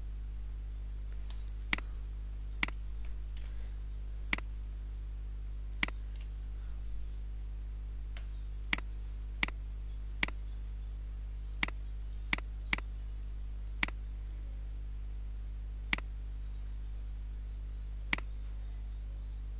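Computer mouse button clicking: about a dozen single sharp clicks, one every second or two at an uneven pace, over a steady low hum.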